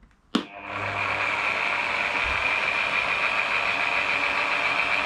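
Parkside PDM600B2 wood lathe switched on with a click about a third of a second in, its motor spinning up within a second and then running steadily at its lowest speed setting, 800. The run has a steady high whine over a low hum.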